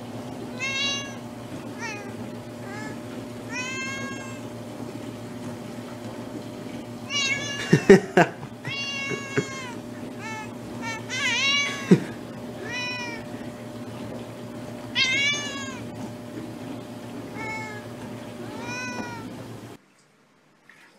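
Domestic cat meowing over and over, about a dozen separate meows that rise and fall in pitch, over a steady low hum. A couple of sharp knocks are heard in the middle.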